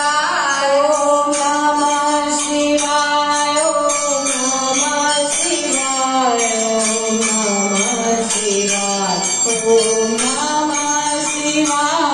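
Hindu devotional song: a voice singing long notes that glide up and down, over a steady jingling percussion rhythm.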